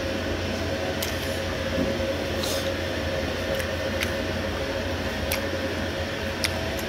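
Steady low hum of room tone, like a fan or refrigerator running, with a few faint, scattered clicks from chewing a mouthful of food.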